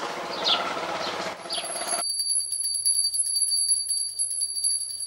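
Birds chirping with short falling calls over outdoor ambience, then about two seconds in a sudden switch to a hand bell rung rapidly and continuously: a steady high ring with fast, even clapper strikes, as a puja bell is rung at an altar.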